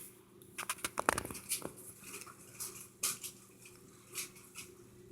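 A woman's hiccup about a second in, the loudest sound, in a long bout of hiccups. A few light clicks and taps come before and after it.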